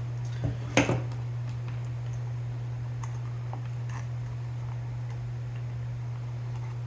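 A steady low hum with a few light clicks and taps of small tools or parts being handled, one sharper click about a second in.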